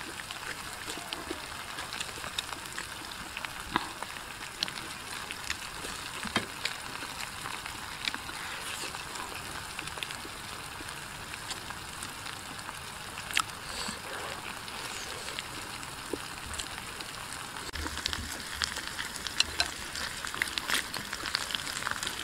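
A spicy stir-fried dish sizzling in a stainless steel wok that is still on a portable burner: a steady hiss with scattered crackles, which grow denser near the end.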